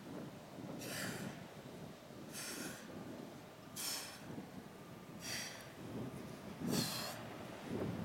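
A woman's short, forceful exhales, five of them about a second and a half apart, one with each crunch.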